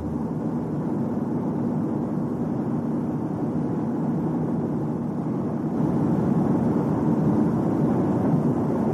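Steady droning noise of a vehicle on the move, given as an example of vehicle noise. It grows somewhat louder about six seconds in.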